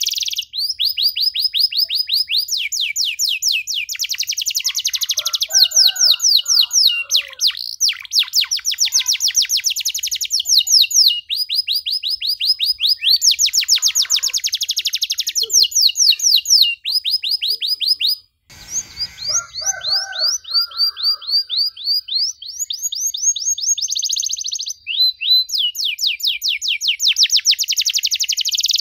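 Domestic canary singing loudly in long, continuous runs of rapid trills, each phrase a fast string of repeated high notes before it shifts to a new trill. A brief break interrupts the song a little past two-thirds of the way through.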